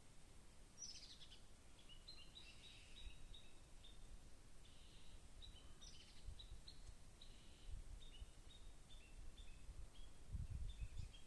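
Small songbirds calling faintly: a long run of short high chirps stepping between two pitches, with a couple of quick downward-sweeping calls. Low rumbles come and go, the loudest near the end.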